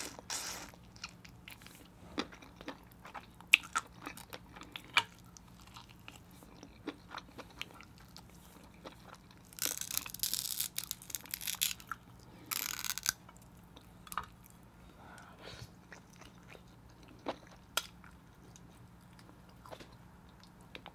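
Close-miked chewing and wet mouth clicks of someone eating king crab meat, with scattered sharp smacks. About ten seconds in comes a noisy rustling stretch of about two seconds, with a shorter one soon after, as crab meat is pulled from its shell.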